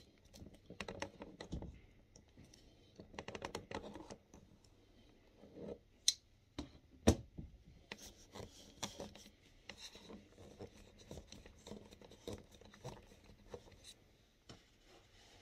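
Hands and a tool working the water supply line connection loose on a Dometic 310 toilet's flush valve: scattered scraping, rubbing and clicking, with a couple of sharper clicks midway.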